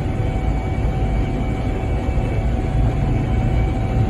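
Gleaner combine running steadily while harvesting wheat: a constant low engine and threshing drone with a thin steady whine above it.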